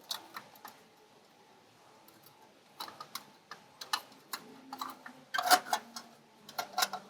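Irregular sharp metallic clicks and clinks of hand tools as the oil pan is bolted back onto the engine, with a dense run of clicks a little past halfway.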